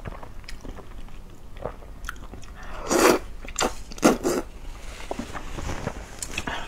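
Close-miked mouth sounds of a person eating luosifen rice noodles: wet chewing with small clicks, broken by loud slurps about three seconds in and again about a second later.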